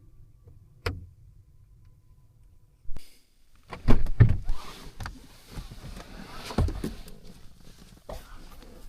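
A sharp click about a second in, then a stretch of rustling with several knocks, as of gear being handled close by.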